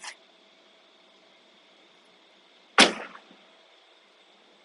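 Tesla Model 3 car door being shut: a single loud thud about three seconds in, with a brief tail after it.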